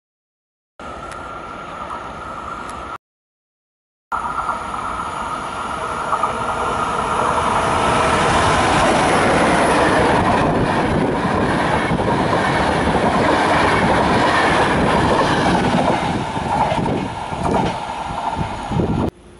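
EU44 'Husarz' (Siemens Taurus) electric locomotive and its intercity passenger coaches passing close by at speed. The rush of wheels and coaches builds, holds loud, then eases as the last coaches go by, with a steady whine heard in the first seconds. The sound cuts to silence twice near the start and stops abruptly just before the end.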